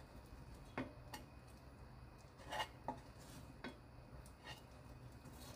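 Faint clinks and scrapes of a utensil against a pan and a glass container as sticky stir-fried filefish strips are scooped across: a handful of light knocks, the loudest about two and a half seconds in.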